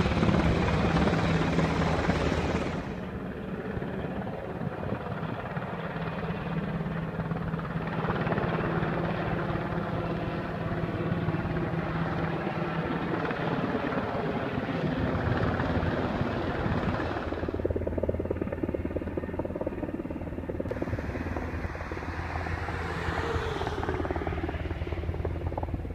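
Military helicopter flying overhead, its rotor and engine giving a steady drone that is loudest for the first few seconds and then settles a little quieter, with a slowly falling tone near the end.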